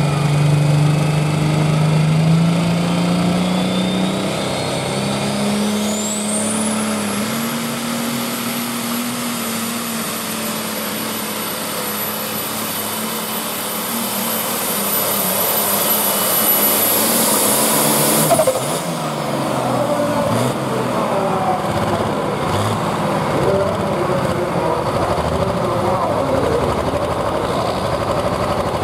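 Super Stock diesel pulling tractor at full power down the track. Its turbocharger whine climbs steeply in pitch over the first several seconds and then holds high, with the engine note rising beneath it. About eighteen seconds in, the whine and engine note cut off abruptly as the pull ends, and a lower, rougher engine sound carries on.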